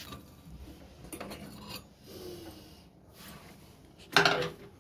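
Plastic blender jug and a metal spoon scraping and tapping against a plate while thick chocolate sauce is poured and spread over a cake. The loudest sound is a short clatter of the spoon near the end.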